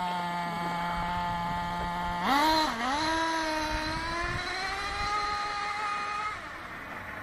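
Traxxas T-Maxx monster truck's .21 nitro engine idling steadily, then revved hard about two seconds in as the truck pulls away. The engine note dips briefly, then climbs slowly as the truck drives off, and falls away in loudness near the end.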